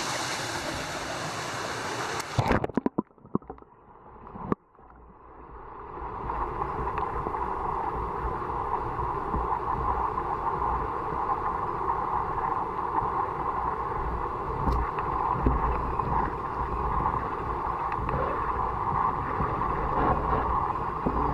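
Mountain creek rushing over a small cascade, then a few splashes and knocks as the waterproof camera goes under, after which the stream is heard from under the water as a steady, muffled, duller rushing with a low rumble.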